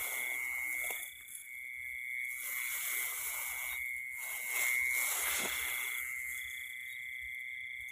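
Night insects trilling in one steady high tone, with rice stalks rustling and swishing on and off as someone pushes through the paddy.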